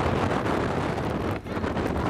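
Wind buffeting the microphone on the open deck of a moving ferry: a rough, rushing noise that rises and falls in gusts, easing briefly about one and a half seconds in.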